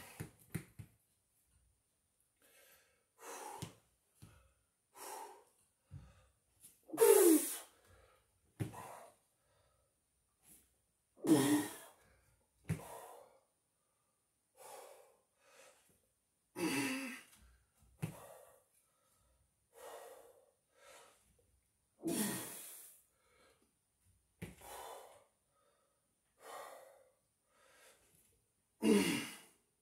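A man breathing hard with exertion during false-grip ring pulls: a loud, forceful exhale about every five seconds, with quieter breaths in between.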